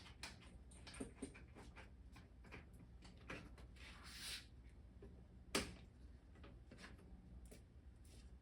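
Faint clicks and knocks of a clamp being tightened down on a glued workpiece, with one sharp click about five and a half seconds in, over a low steady hum.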